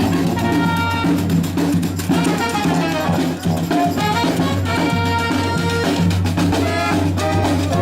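Jazz-style music with drums, horns and a steady bass line.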